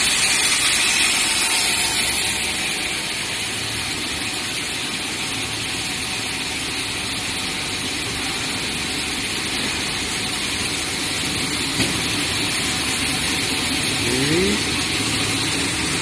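Steady mechanical hum and hiss of a LAN cable insulation line running: machinery, cooling-water trough and wire reels at production speed. A single sharp tick about twelve seconds in.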